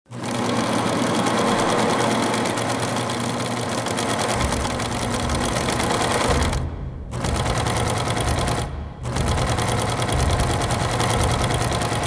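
Industrial sewing machine stitching in a fast, steady rattle, stopping briefly twice in the middle. A low rumble joins beneath it about a third of the way in.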